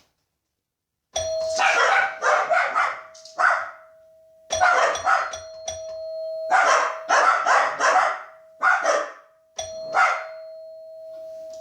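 Doorbell struck three times: about a second in, at about four and a half seconds, and near the end. Each strike leaves a long ringing tone. Dogs bark in bursts over and between the chimes.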